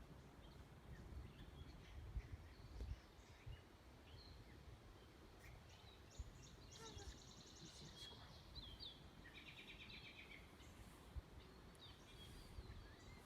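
Faint outdoor ambience of scattered bird calls, including a couple of rapid trills around the middle, over a low rumble.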